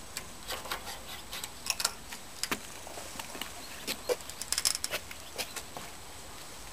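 Steel blade of a NOKS Sapsan knife scraping and clicking in the mortar joint of a brick wall as it is forced and worked in by hand: irregular sharp clicks and grating scrapes, thickest about four to five seconds in.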